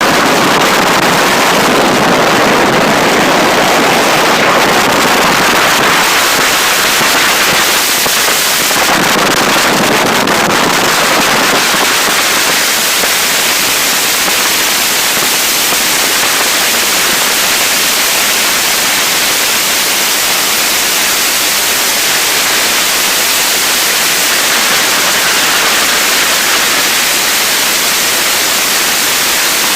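Heavy wind noise rushing and buffeting over a handheld phone's microphone on a bass boat running at speed, a loud steady roar of noise with no engine tone standing out. It is heaviest in the first dozen seconds, then eases slightly.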